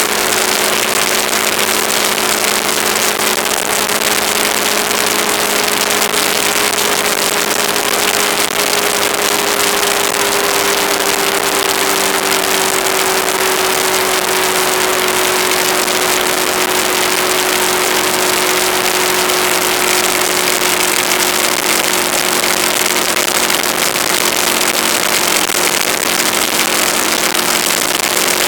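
Aprilia Caponord's V-twin engine running at a steady cruise under loud, constant wind rush on the camera's microphone, its note easing slowly lower around the middle.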